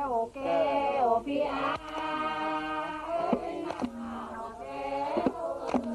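Voices singing a jriang (Khmer-style folk song of Thailand's Surin region), most likely jriang pang na, with long held notes that slide down in pitch between phrases.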